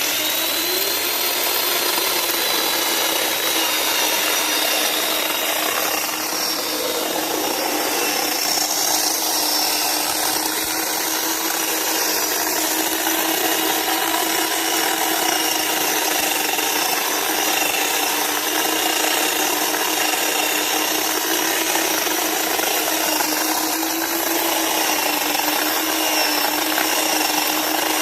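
Chainsaw running at steady high speed, cutting through tree wood, with an unbroken buzzing whine.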